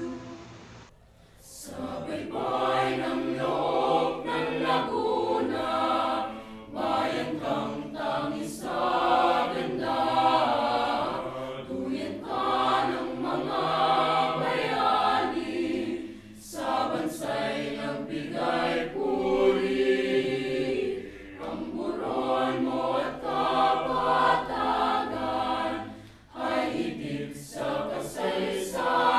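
Small mixed choir of student singers, boys and girls, singing together in sung phrases with short breaks between them.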